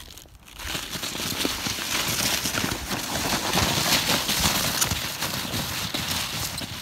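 A sled sliding down a crusted, icy snow slope: a crunchy scraping hiss that builds up about half a second in and fades out near the end.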